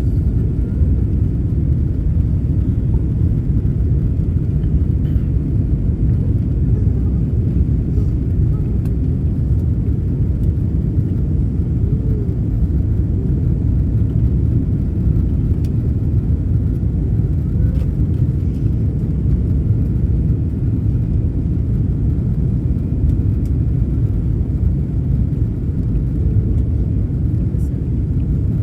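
Steady low rumble of an Airbus A330's engines and rushing airflow heard from inside the passenger cabin during the approach descent.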